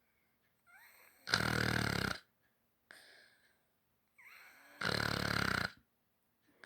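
German Shepherd puppy snoring in its sleep: two loud, rattling snores about three and a half seconds apart, each led in by a softer breath.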